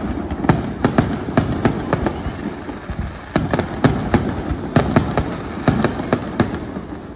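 Aerial fireworks shells bursting in quick succession: two or three sharp bangs a second, each with an echoing tail, over a continuous crackle and rumble.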